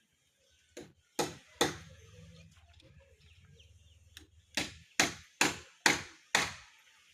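Hammer blows on wooden roof timber, as when nailing the roof frame: a few strikes about a second in, then a steady run of five strikes about two a second near the end.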